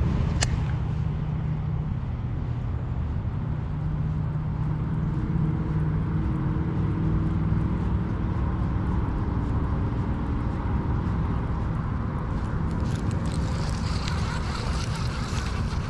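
Steady wind rumble on the camera microphone, with a faint low hum through the first half and a brighter rustle near the end.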